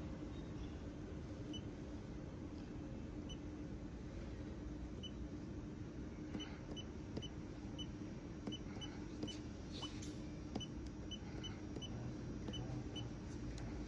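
A string of short, high electronic beeps at uneven intervals, few at first and coming more often from about halfway in, over a steady low hum.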